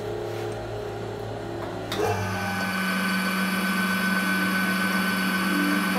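Metal lathe switching on with a click about two seconds in, then running with a steady hum and a higher whine as the chuck spins.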